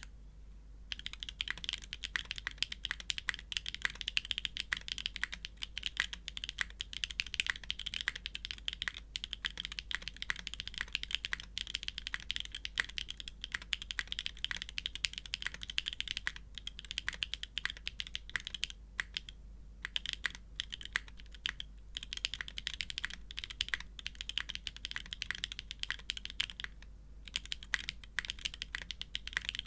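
Fast, continuous typing on a Geon F1-8x v2 Classic mechanical keyboard with an aluminium plate, GMK keycaps and factory-lubed Franken switches (OP clear glass tops on Gateron Raw housings and stems). The keystrokes start about a second in and pause briefly twice, near twenty and near twenty-seven seconds in.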